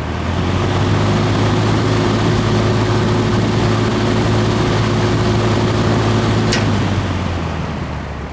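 Vintage Emerson Electric 20-inch box fan starting up on high speed: the motor hums and the blades rush air, building up over the first second and then running steadily. A sharp click about six and a half seconds in, after which the sound begins to fade as the fan winds down.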